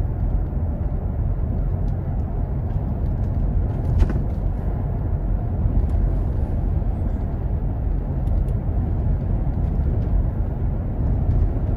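Steady low rumble of a car driving on the highway, heard from inside the cabin, with a brief click about four seconds in.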